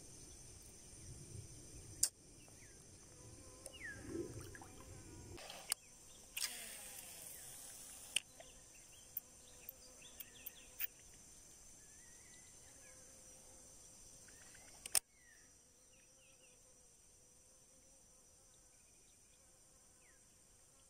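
Steady high-pitched insect drone, broken by a few sharp clicks from handling a baitcasting reel and rod and a short rushing hiss about six seconds in; after the loudest click, about fifteen seconds in, only the insect drone remains.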